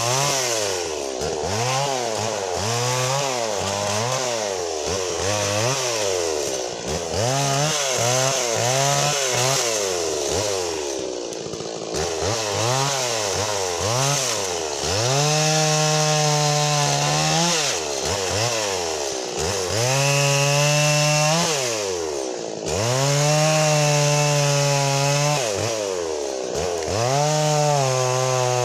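Stihl MS 170 two-stroke chainsaw cutting through a fallen balsam fir trunk. At first the engine revs up and drops back in quick surges, about one a second. From about halfway it holds at high revs through cuts of two to three seconds, falling back briefly between them.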